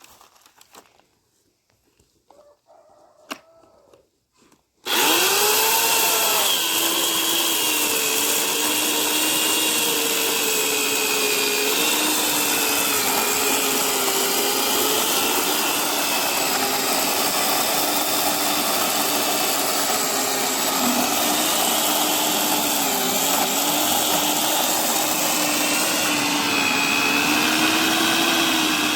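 1.8 kW Expert electric chainsaw switched on about five seconds in after a single click, then running steadily with a wavering pitch as it saws through a log.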